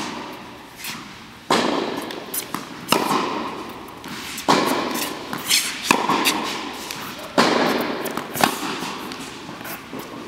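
Tennis balls struck hard by rackets in a baseline groundstroke rally, a sharp pop about every one and a half seconds as the two players trade shots, with lighter knocks between. Each hit rings on in the echo of a large indoor tennis hall.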